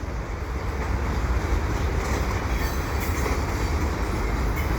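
Freight cars of a passing freight train rolling by: a steady rumble of steel wheels on rail, with a few faint, brief high-pitched wheel squeals.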